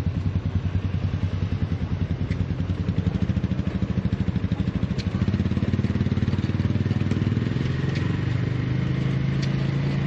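An engine running steadily with a low, even pulsing; its note changes slightly around the middle.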